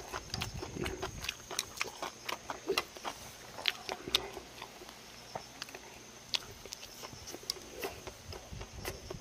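A person eating close to the microphone: chewing and mouth smacks with sharp clicks about three times a second, fewer in the second half. A steady high insect trill runs behind.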